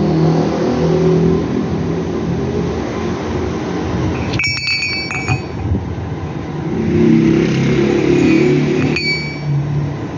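A motor running steadily with a low rumble, and metal parts clinking with a short ringing note, once about four and a half seconds in and again near the end.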